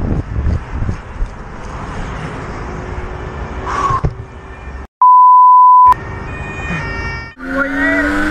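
Wind rush and motorcycle engine noise on a police motorcycle's helmet camera, then about five seconds in a loud steady censor-style beep lasting about a second. Near the end a Yamaha YZ125 two-stroke dirt bike's engine revs up, its pitch rising.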